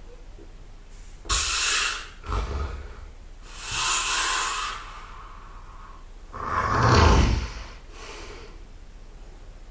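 A sleeping man snoring through his nose: four snorting, rasping breaths a second or two apart. The last, about six seconds in, is the longest and loudest, with a deep rumble under the hiss.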